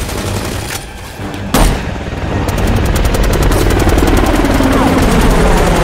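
A single loud bang about a second and a half in, then rapid automatic gunfire from a helicopter-mounted machine gun, part of a film battle soundtrack.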